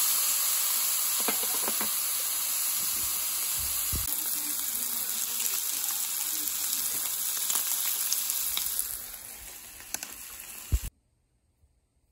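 Pork belly (samgyeopsal) sizzling on the grill plate of an electric grill pan, a steady loud hiss with a few sharp clicks. It eases slightly near the end, then cuts off abruptly.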